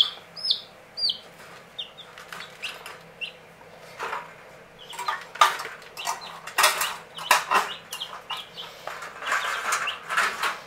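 Broiler chicks peeping, several short falling cheeps in the first few seconds, then irregular clattering and rustling as the wire cage's metal strip and tray are handled.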